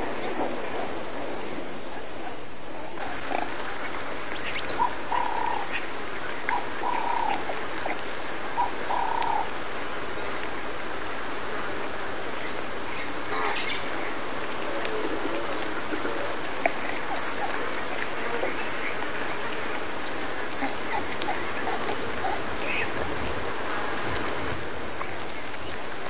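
Steady marsh wildlife ambience, an even hiss-like chorus, with a few short calls about five to nine seconds in and scattered faint chirps.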